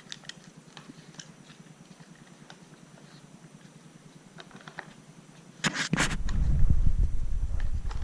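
A dog working a Dog Tornado treat puzzle, with scattered small clicks and taps and some chewing. About five and a half seconds in there is a loud rustle, followed by a steady low rumbling noise.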